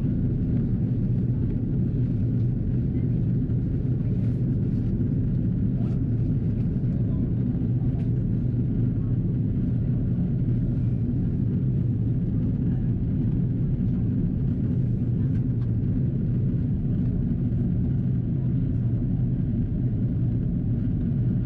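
Cabin noise of an Airbus A330-343 airliner in descent: a steady low rumble of airflow and engines.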